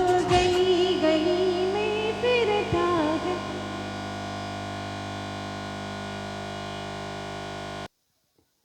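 Recorded music: the beat stops shortly after the start, leaving a gliding melody over a held synthesizer chord. The chord rings on alone and then cuts off suddenly near the end, leaving near silence.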